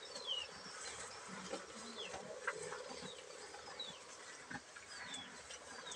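Cattle munching and tearing cut grass at a feeding trough, with scattered low crunching and rustling. Behind it a bird repeats a short falling whistle about once a second.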